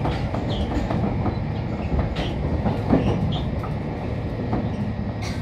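Running noise inside a JR Kyushu 811 series electric train's motor car at speed: a steady rumble of wheels on rail, with a few sharp clicks as the wheels pass over the track.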